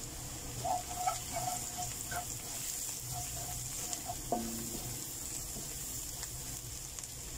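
Minced onion and garlic with curry and turmeric powder sizzling in oil in a stainless-steel wok, stirred and scraped with a wooden spatula. A few short, faint high tones come and go in the first half.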